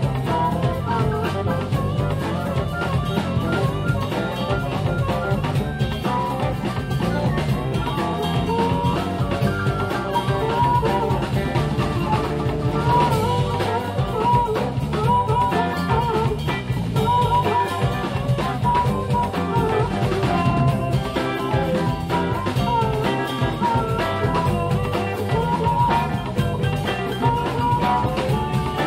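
Electric blues band playing live: drum kit and electric guitars over bass, with a lead line bending around it and no singing.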